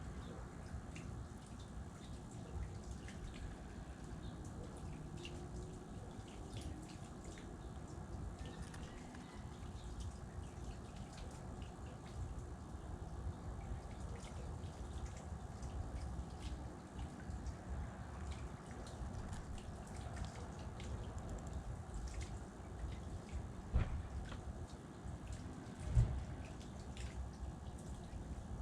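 Outdoor ambience: a steady low rumble with scattered light ticks and drip-like taps throughout, and two louder knocks near the end.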